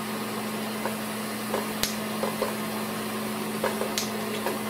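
Bell & Howell Filmo Picture Master 8mm projector's electric motor running with a steady, quiet hum, with several light clicks, one sharper about two seconds in, as the mechanism is handled. The clutch is engaged but the mechanism is not being driven, which the owner puts down to a flat spot on the rubber tire of the idler wheel so it does not engage the drive wheel.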